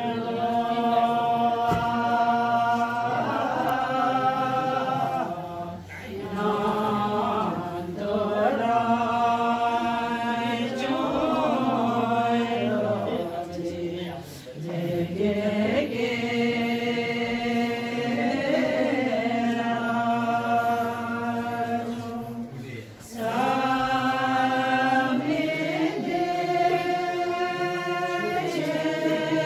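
A group of women's voices chanting a Buddhist devotional chant in unison, holding long drawn-out notes. The phrases are broken by three short breaths, about six, fourteen and twenty-three seconds in.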